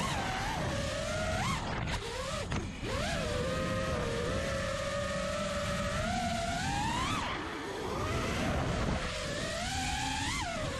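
A 5-inch FPV freestyle quadcopter's Hyperlite 2207.5 2550kv brushless motors and Gemfan 5130 props whining, the pitch rising and falling with throttle. There are several sharp upward sweeps, the biggest about seven seconds in and again just before the end, over a steady low rush.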